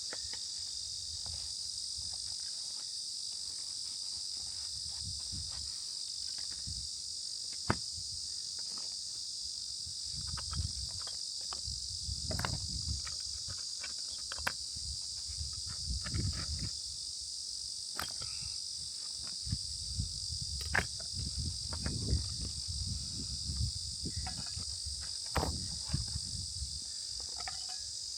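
Steady, shrill chorus of insects, crickets or similar, with scattered clicks and low rustling thumps of handling nearby.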